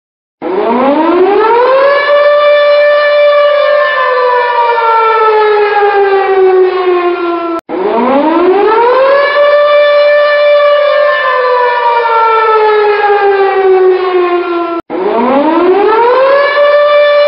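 Civil defense air-raid siren sounding an attack warning: its tone winds up in pitch over about a second and a half, holds, then slowly winds down, then cuts off abruptly and starts again. Three such cycles, beginning about half a second in.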